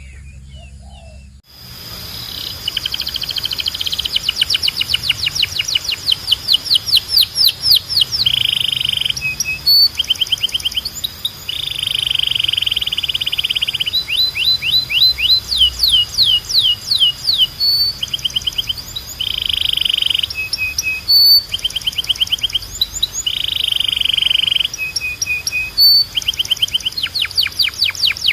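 Domestic canary singing a long, continuous song of rapid trills, runs of falling whistled notes and buzzy rolls, with a steady high tone underneath. The song starts after a short near-quiet moment at the beginning.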